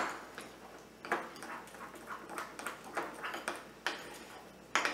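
Spoon stirring thick royal icing in a ceramic bowl, clinking and scraping against the bowl in irregular strokes, a few a second.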